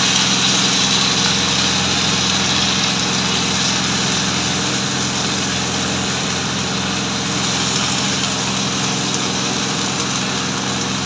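Onion, garlic, flour and milk sizzling in a hot frying pan as a spatula stirs them, over a steady low mechanical hum.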